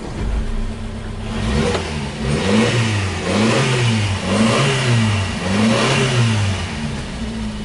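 Subaru Sambar kei truck engine, just started, revved in a series of short throttle blips, about one a second, each one rising and falling in pitch, then settling back to a steady idle near the end.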